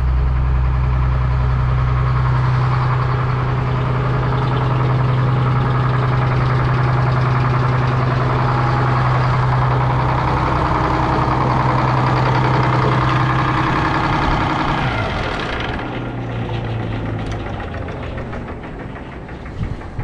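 Sawmill's diesel engine running steadily, then shut off about fifteen seconds in and winding down to a stop while the saw coasts.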